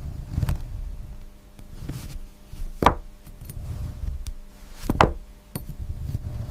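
Sharp knocks: two loud strikes about two seconds apart and a few fainter taps, over a low rumble.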